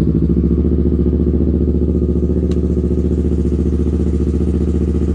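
Yamaha MT motorcycle engine idling steadily, moments after being started. A single faint click about two and a half seconds in.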